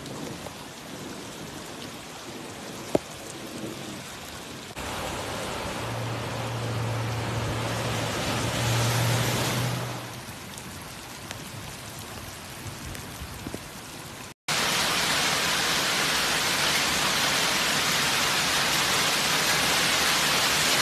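Heavy rain falling, a steady hiss of water noise heard across several clips. It grows louder about five seconds in, with a low steady hum for a few seconds. After an abrupt cut it becomes a louder, even downpour.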